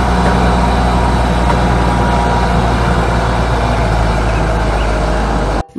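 Grove RT530E rough-terrain crane's diesel engine running steadily, cutting off suddenly just before the end.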